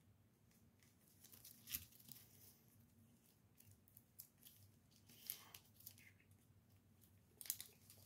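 Near silence, with a few faint rustles and soft clicks of trading cards being handled, the clearest about two seconds in.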